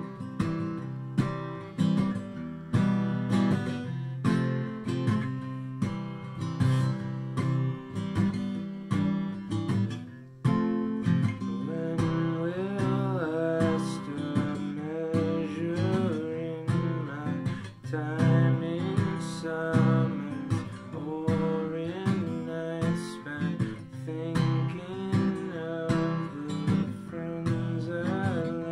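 Acoustic guitar strummed steadily, playing a song. About twelve seconds in, a man's singing voice joins the guitar.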